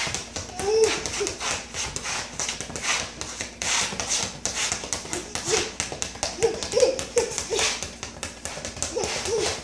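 A small rubber basketball bounced rapidly and low on a ceramic tile floor, a quick run of hard taps. A baby's short babbling calls come in about a second in, in a string from about the middle on, and again near the end.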